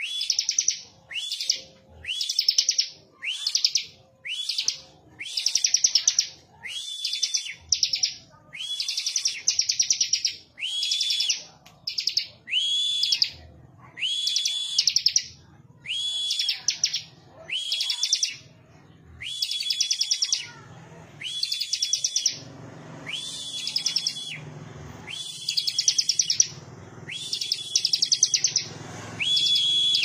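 A caged ciblek, a small prinia, singing its song over and over: a quick chattering trill of short high notes that opens on a rising note, repeated about once a second with short gaps between phrases.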